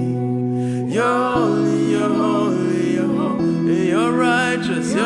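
Gospel worship music: sustained keyboard-like chords with a singer's wordless, gliding vocal phrases, about a second in and again near four seconds.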